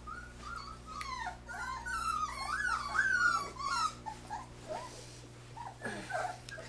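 Nearly four-week-old puppies whining and yelping, several high wavering cries rising and falling and overlapping, loudest about three seconds in, with fainter whines near the end.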